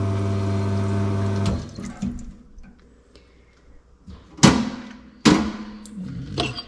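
A machine hums steadily with a rush of noise over it, like a pump with water running, then cuts off suddenly about a second and a half in. A few seconds later come two sharp knocks of hard objects being set down, each ringing briefly.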